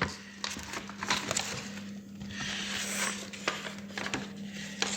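Paper pages of an instruction booklet being leafed through and handled: soft rustles and scattered light clicks, strongest around the middle, over a steady low hum.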